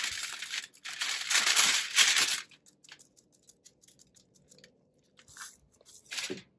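Aluminium foil crinkling and rustling as crushed red pepper flakes are shaken from a small cup onto a catfish lying on the foil. The rustling comes in bursts for the first two and a half seconds, with two short rustles near the end.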